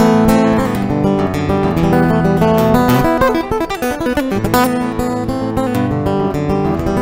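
Background guitar music, sustained chords changing throughout.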